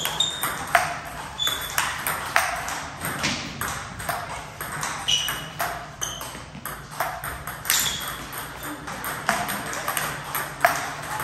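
Table tennis rally: the ball clicking sharply off the bats and bouncing on the table in a quick, even run of ticks, roughly one every half second, with more clicks from other tables.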